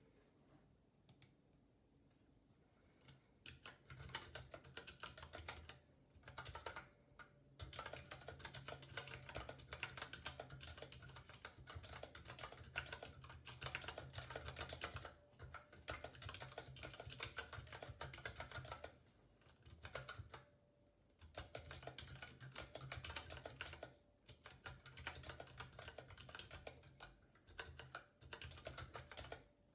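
Typing on a ZSA Moonlander split mechanical keyboard with unlubricated Cherry MX Brown tactile switches and rubber O-ring dampeners: rapid runs of keystroke clacks, broken by short pauses. The first few seconds hold only a few isolated taps.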